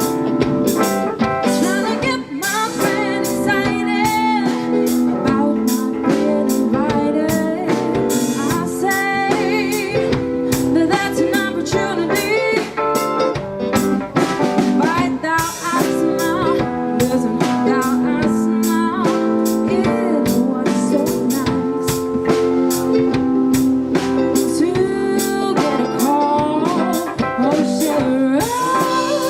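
Live band playing a song: a lead singer over drum kit and guitar with a steady beat.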